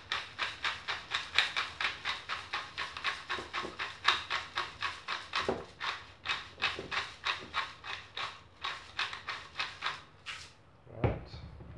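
Salt and pepper being dispensed from a glass seasoning bottle into a glass jar in quick rhythmic strokes, about three or four a second. The strokes stop a little before the end, followed by a single knock.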